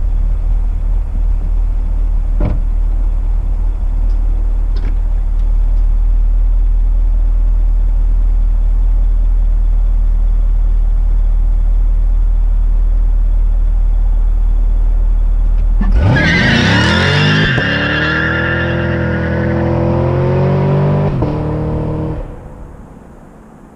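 A 2018 Chevrolet Camaro SS's 6.2-litre V8 idles steadily, then launches hard about sixteen seconds in. The engine note climbs in pitch and drops back at each upshift as the car accelerates away, and it fades out about twenty-two seconds in.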